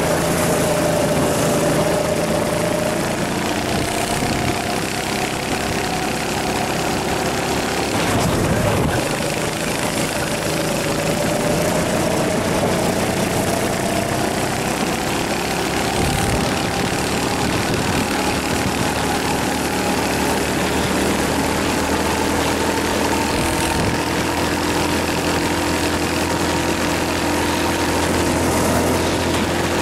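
Rental go-kart engine running under load, heard on board the kart. Its pitch dips briefly about eight seconds in, then climbs slowly and steadily through the rest.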